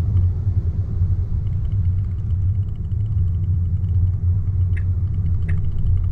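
Low steady road rumble inside the cabin of an electric Tesla Model Y driving slowly over a wet road. There is no engine note, and faint light ticks come through from about a second and a half in.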